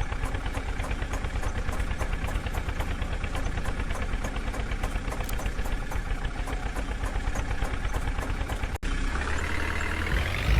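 Diesel engine of a tractor or backhoe loader idling with a steady rhythmic clatter. Near the end, after a brief drop-out, the engine note rises as it revs up.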